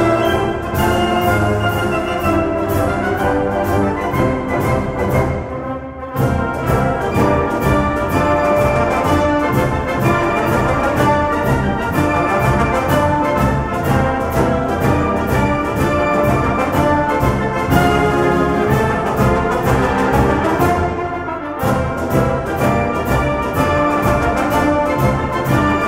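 Background orchestral music with brass, playing steadily to a regular beat and thinning out briefly twice.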